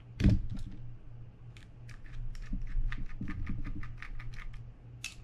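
A single knock about a quarter second in, then a run of light clicks, four or five a second, as a small precision screwdriver turns a screw out of the body of a Daiwa BG90 spinning reel.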